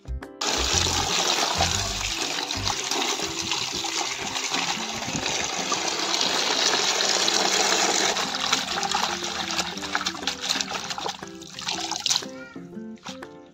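Water running steadily into a plastic tub of amaranth leaves being washed by hand, starting about half a second in and stopping near the end. A light background tune plays throughout.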